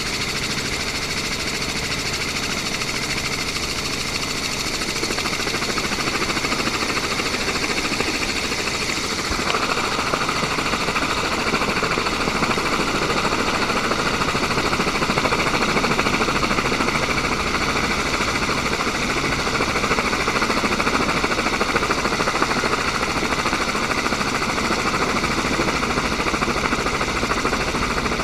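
Steady mechanical whine holding several fixed pitches, joined about nine seconds in by a louder, rougher engine noise that stays up.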